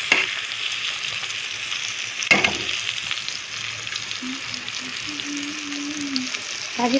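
Whole pointed gourds (parwal) frying in hot oil in a kadai, a steady sizzle as they are browned until golden. A metal spatula knocks against the pan once, a little over two seconds in.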